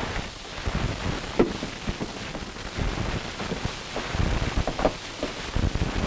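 Steady hiss and crackle of an old 16mm film's optical soundtrack, with scattered clicks and a few low thumps.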